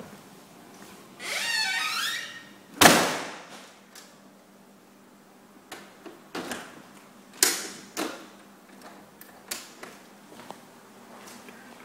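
A door squeaks for about a second, then shuts with a loud bang, the loudest sound here. A few lighter clicks and knocks follow later.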